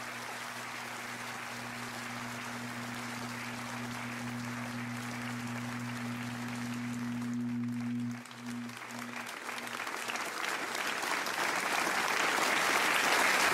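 Audience applause from a live music recording, over a held low note that stops about eight seconds in; the applause grows louder toward the end.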